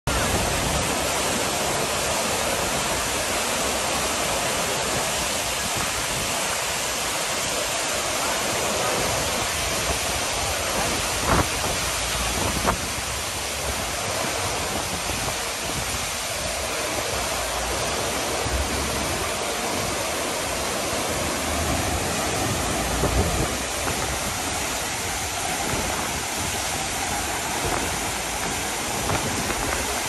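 Artificial waterfall spilling over tiered rocks into pools: a steady rush of falling and splashing water. Two brief clicks come about a third of the way through.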